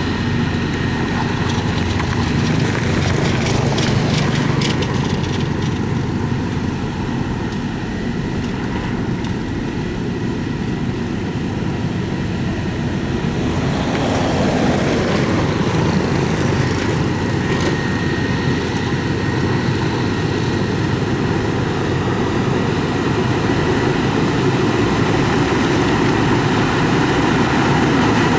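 Diesel engine of heavy road-construction machinery running steadily under work, with a brief rise and fall in pitch about halfway through.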